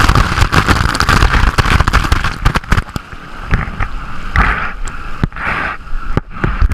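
Whitewater from a large breaking wave surging over and around a GoPro: loud churning, rushing water with crackling bubbles and knocks against the camera housing. It eases and breaks up after about three seconds.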